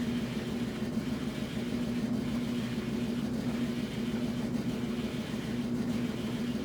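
Washing machine running: a steady motor hum with a slight regular pulse about once a second.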